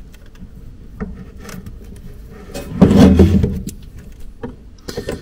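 Hands working wires into a plastic solar charge controller: a few small clicks and, about three seconds in, a louder rubbing scrape.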